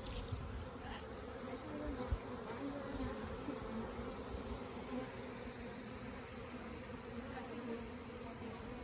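Many honey bees buzzing in a steady hum, with single bees shifting in pitch as they fly close by; the colony is stirred up after being cut out and smoked. A brief low bump about two seconds in.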